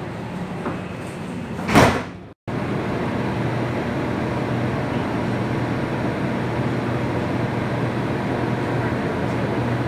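Sliding doors of an M200 Bombardier metro car closing with one loud thud about two seconds in. The sound then breaks off and gives way to the steady hum of an M300 CAF metro car standing with its doors open.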